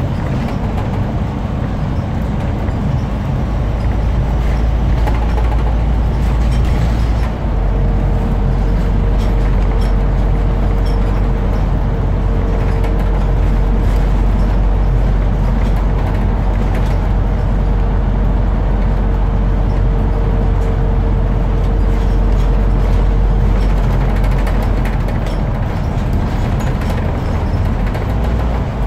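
Scania CN230UB single-decker bus heard from inside the saloon while under way: steady diesel engine drone and road rumble. A steady whine joins it about a quarter of the way in and stops a few seconds before the end.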